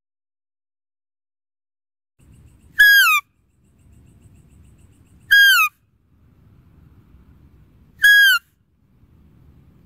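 Three short, high-pitched deer calls, each ending in a falling pitch, about two and a half seconds apart, over a faint low rumble; the first comes nearly three seconds in.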